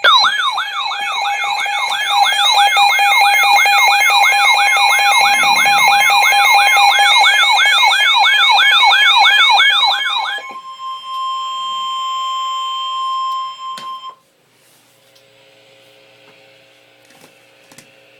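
Emergency Alert System alert tones for a severe thunderstorm warning. A loud electronic siren tone warbles up and down about three times a second over steady tones for about ten seconds. Then a single steady tone sounds for a few seconds and cuts off suddenly, leaving only a faint hum and a few clicks.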